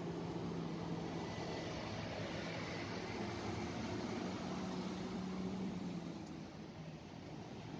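Scania fire rescue truck's diesel engine running as it drives past, easing off after about six seconds.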